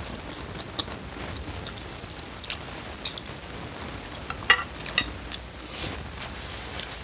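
Mukbang eating sounds: soft wet chewing of noodles in soup with small clicks of a metal fork and spoon. Two sharper clinks a little past halfway are the loudest sounds, as the utensils are left in the ceramic bowl, followed by a brief papery rustle of a tissue.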